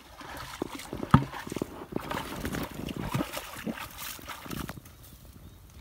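Footsteps wading and squelching through shallow muddy water and soft mud, with irregular splashes and sloshes. The sharpest splash comes about a second in, and the steps grow quieter and sparser near the end.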